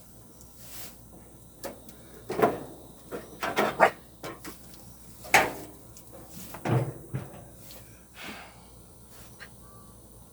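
A handful of irregular knocks and clatters, like hard objects being handled and set down, the loudest about two and a half, four and five and a half seconds in.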